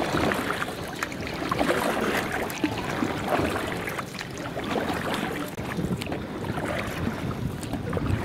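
Water splashing and sloshing around a small boat, with many short irregular splashes, and wind on the microphone.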